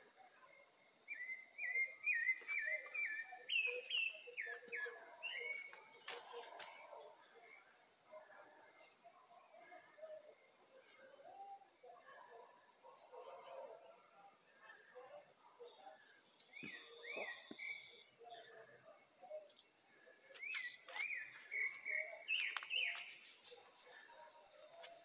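A sabiá thrush singing: a few seconds of phrases of quick sliding whistled notes near the start, more about two-thirds in and near the end, with pauses between. A steady high insect trill, like a cricket's, runs underneath.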